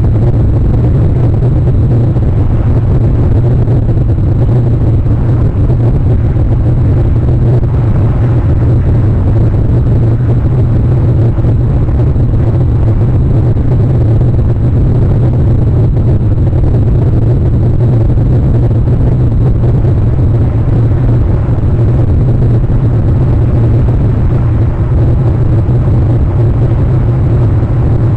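Loud, steady low rumble that holds unchanged throughout, with no distinct events on top.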